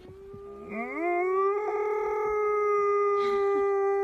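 A dog howling: one long howl that rises about a second in and then holds steady, over another steady tone that is already sounding.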